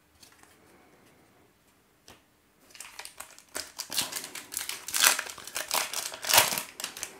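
Foil wrapper of a Topps Opening Day baseball card pack being torn open and crinkled by hand. It starts about two and a half seconds in as a dense crackle, loudest near the end.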